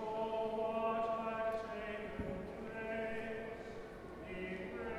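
A choir singing slow, sustained chords, each note held for a second or so before the harmony moves on.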